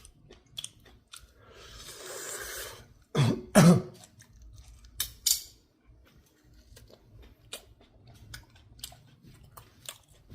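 A person chewing rubbery boiled sea hare, with wet clicking mouth sounds spread through. A little after three seconds in come two short, loud throat sounds, like a cough.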